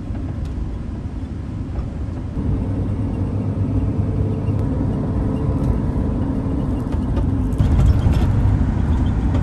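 Road noise inside a moving car's cabin: a steady low rumble of tyres and engine that grows louder about two and a half seconds in and again near the end.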